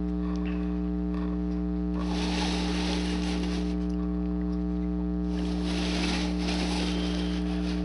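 Steady electrical mains hum: a constant low buzz with several overtones and a faint hiss, unchanging throughout.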